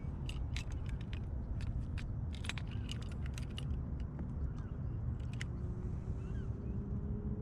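Metal fish lip grips with a built-in scale clicking and rattling as a bass is weighed, a quick run of sharp clicks that thins out after a few seconds, over a steady low rumble of wind and moving water. A faint steady hum rises in the last two seconds.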